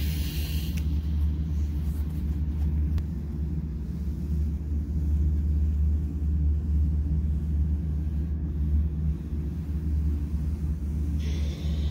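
A steady low rumble, with a short hiss in the first second and another starting near the end.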